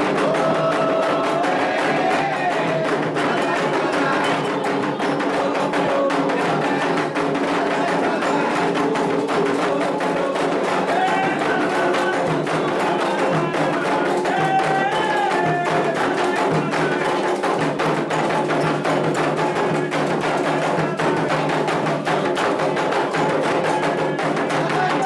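Candomblé ritual music: atabaque hand drums keeping a steady, dense rhythm with a struck bell, under call-and-response singing, played for the dance of the orixá Oxumaré.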